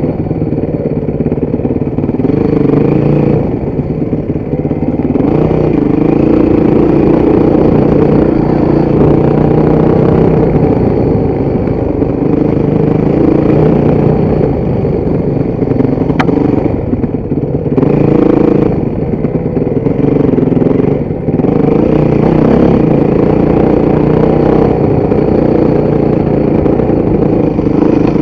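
Motorcycle engine running under load while riding, its pitch rising and falling with the throttle, and several brief drops where the throttle is eased off.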